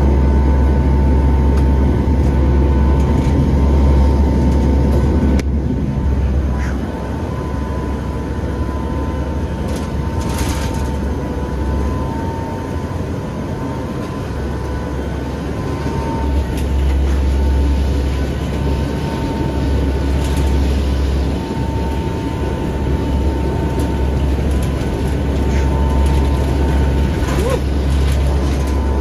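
Steady cabin drone of an aircraft in flight: a deep engine and airflow rumble with a steady whine held above it. It is loudest for the first five seconds or so, then eases slightly.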